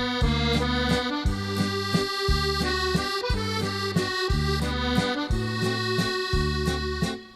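Accordion music with a steady rhythmic bass-and-chord accompaniment under a held melody, breaking off briefly near the end.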